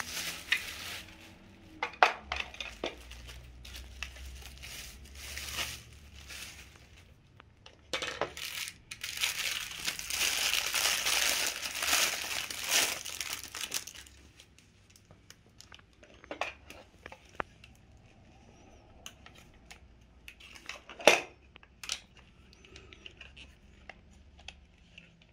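Plastic wrapping crinkling and rustling as the parts of a spray mop are unwrapped, dense and continuous through the first half. After that it goes quieter, with a few sharp clicks and knocks of plastic parts being handled and fitted together.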